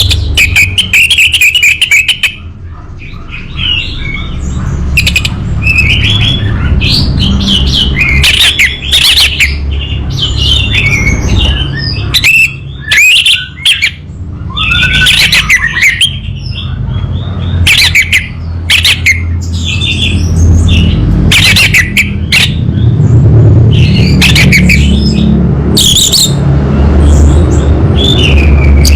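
Orange-headed thrush singing a loud, varied song: quick changing phrases, trills and sharp calls, one after another, over a steady low rumble.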